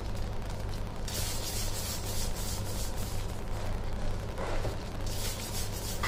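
Plastic-gloved hands rounding bun dough balls on a floured stainless-steel counter: quick rubbing, scuffing strokes in two spells, about a second in and again near the end, over a steady low hum.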